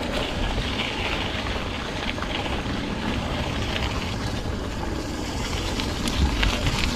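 Mountain bike riding over a rutted dirt trail: steady wind rush on the camera's microphone with the rumble of the tyres, and scattered light clicks and rattles.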